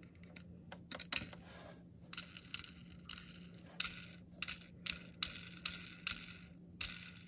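Handling noise from gloved hands moving and shaking a plastic-chassis diecast stock car: a run of short scratchy rustles and light rattles, sparse at first and then about two a second from around four seconds in.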